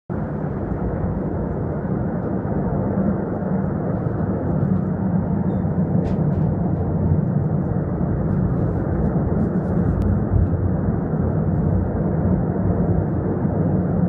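Steady, deep roar of a natural gas pipeline fire, gas burning from the ruptured line without a break.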